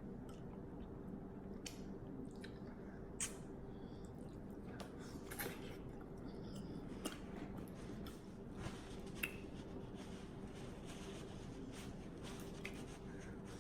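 Close-up eating sounds of a seafood boil: wet chewing and smacking, with sharp little clicks and cracks every second or two.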